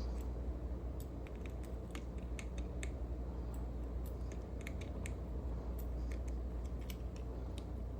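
Small irregular metal clicks and taps as a lock follower is worked against the spring-loaded C-clip and core of a slider lock, trying to press the clip down so the core comes out. A steady low hum runs underneath.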